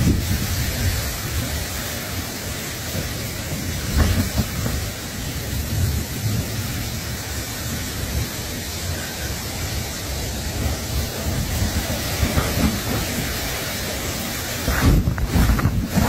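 Wind buffeting the microphone: a steady rushing hiss with low rumbling that rises and falls, swelling louder near the end.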